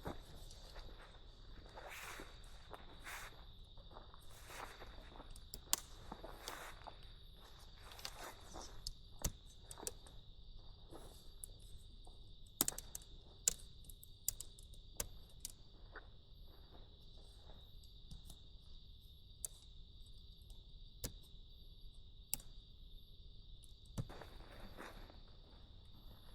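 A steady chorus of insects trilling at a constant high pitch, with scattered clicks and rustles of handled gear and movement on top. The rustling is busiest in the first ten seconds and again briefly near the end.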